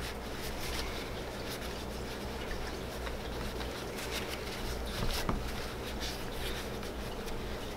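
Paper towel rubbing and rustling against a spinning reel's body and handle as the excess old oil is wiped off, with faint ticks of the reel being handled, one a little louder about five seconds in. A steady low hum runs underneath.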